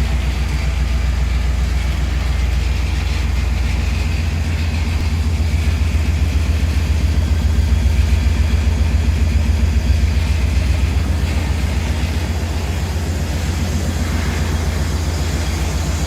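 1999 Chevrolet Tahoe engine running with a low, steady rumbling pulse, swelling slightly in the middle; the loud exhaust note is the sign of an exhaust leak.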